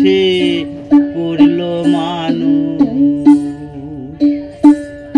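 Background music: a song with plucked string accompaniment.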